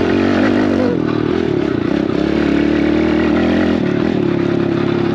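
Small dirt bike engine running steadily under throttle, its pitch holding mostly level with small changes about a second in and again near four seconds.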